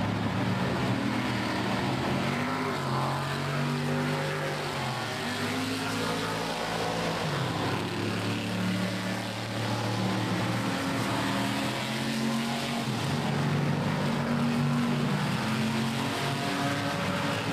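Vintage race cars, including V8 Shelby Cobras, running one after another through a corner. Several engine notes overlap, their pitch stepping up and down.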